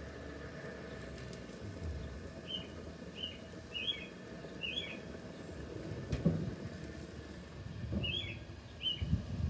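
A small bird chirping outdoors: about six short, falling chirps, in two groups, beginning a couple of seconds in, over a steady low background hum, with one sharp click near the middle.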